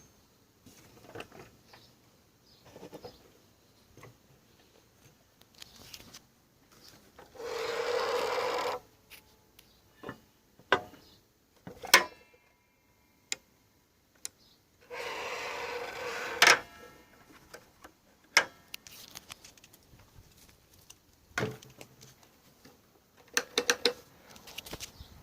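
DeWalt DW780 sliding compound mitre saw being handled and adjusted: scattered clicks and knocks of its parts, and twice a rough rubbing sound lasting about a second and a half.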